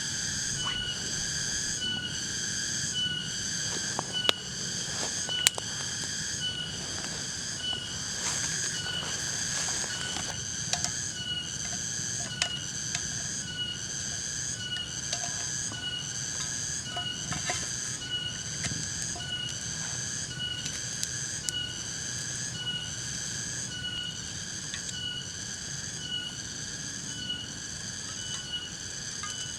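Night insect calling in a steady pulsing rhythm, about one pulse every second and a half, with a couple of sharp clicks about four and five and a half seconds in.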